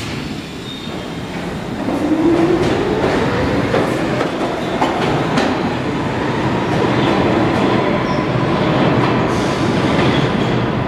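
R62 subway train pulling out of the station and accelerating away, its traction motors rising in pitch about two seconds in, with wheels clicking over the rail joints.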